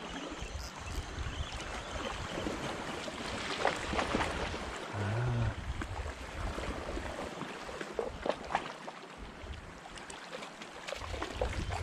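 Small sea waves lapping and splashing at the water's edge, with scattered short splashes and a low rumble underneath.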